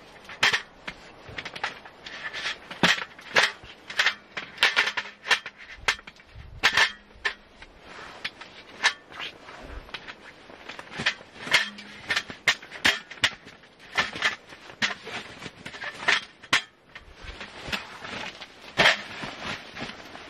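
Folding aluminium camp table being put together: its slatted roll-up top and metal legs clatter and click against each other in many irregular sharp knocks.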